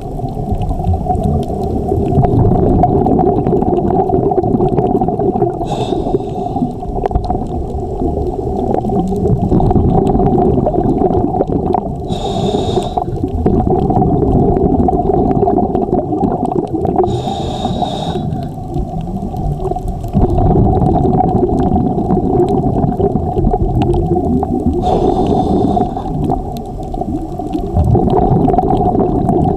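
Underwater recording: a steady low rumble and hum, with a scuba diver breathing through a regulator, a short hiss and bubble four times, about every five or six seconds.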